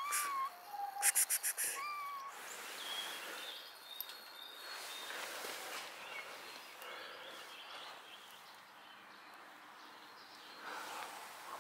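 Birds calling: a rapid rattling chatter in the first two seconds with short whistled notes, then scattered faint chirps over steady outdoor hiss.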